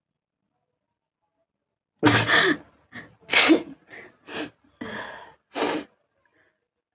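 A person sneezing repeatedly: a string of sneezes in quick succession beginning about two seconds in, the first two the loudest. The sneezes are deliberately provoked, not from a cold.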